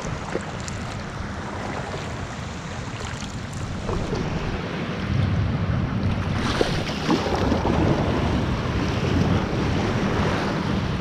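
Small sea waves washing and breaking around shoreline rocks and a cobble beach, with wind buffeting the microphone. The surf grows louder about halfway through as the kayak closes in on the breaking water.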